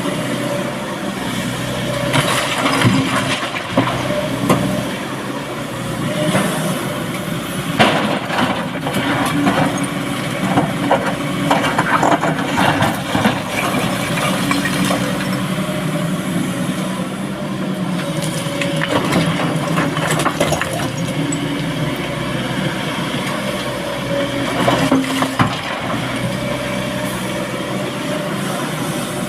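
Heavy diesel machinery running steadily while rock is loaded into a dump truck, with repeated knocks and clattering of stone throughout.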